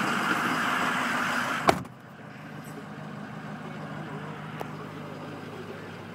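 Ford 6.0 L Power Stroke V8 diesel idling steadily. About two seconds in a truck door shuts with a single sharp thud, and the idle then goes on more muffled, heard from inside the cab.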